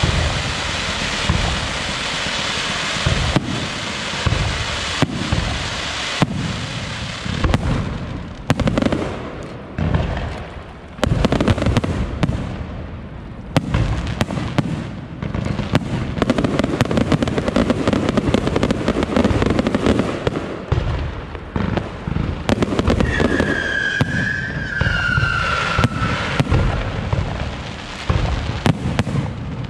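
Aerial fireworks going off in dense, continuous volleys of bangs and booms. A whistle that falls in pitch rises above them about three-quarters of the way through.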